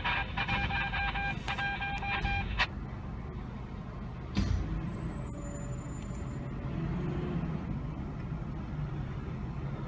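Fire apparatus diesel engines idling, with a backup alarm sounding until about two and a half seconds in. There is a short burst of noise about four and a half seconds in.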